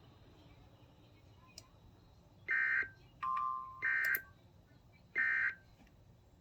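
Emergency Alert System SAME data tones: three short, loud, buzzy bursts about 1.3 s apart, the end-of-message signal that closes the warning. A brief steady lower beep sounds between the first and second bursts.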